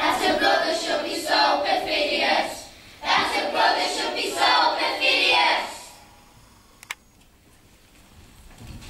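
A chorus of children's voices sounding together in two long bursts of about three seconds each, then dying away to a low hush with a single click.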